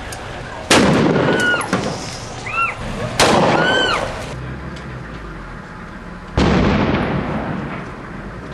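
Three loud bangs from army weapons, about three seconds apart, each ringing on for a second or so as it echoes. Short high whistles that rise and fall follow the first two.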